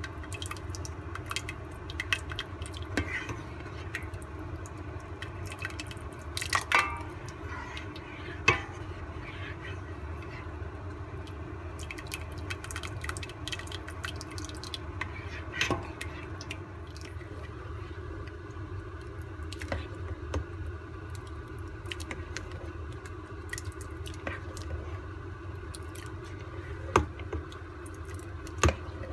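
A metal ladle stirring and scooping in a steel pot of soupy binignit, with liquid running off the ladle, soft clicks and clinks, and a few sharper knocks of the ladle against the pot, over a steady low hum.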